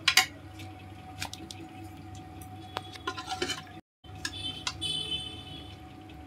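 A metal spoon clinking and scraping against the pressure cooker and then a plate as the keema curry is ladled out: one sharp clink right at the start, then scattered lighter clinks and scrapes.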